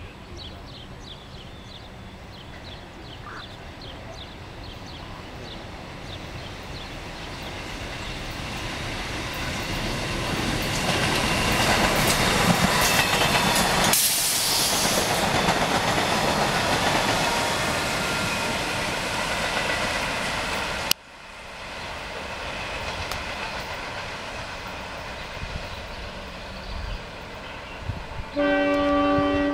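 Budd Silverliner II electric multiple-unit train approaching and passing at speed: a rush and rumble of wheels on rail that builds to its loudest in the middle, with clicking over the rail joints. The sound drops off suddenly about two-thirds of the way through, and a train horn sounds one blast of about a second near the end.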